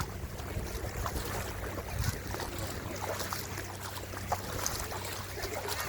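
Steady wind buffeting the microphone over shallow sea water, with small scattered clicks and splashes.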